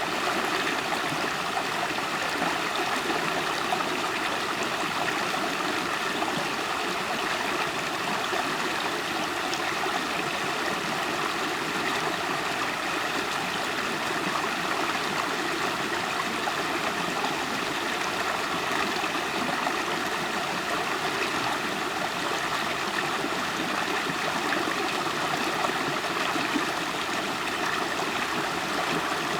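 River water flowing and gurgling, a steady rushing with no breaks.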